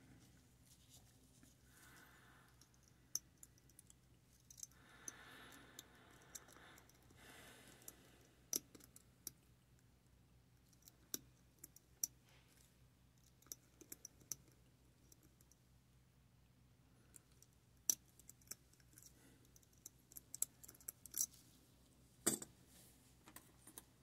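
Faint, scattered clicks and ticks of a lock pick and tension wrench working the pins in the keyway of a Master Lock V Line 50 mm brass padlock, with a few louder clicks in the second half and a soft rustle about five seconds in.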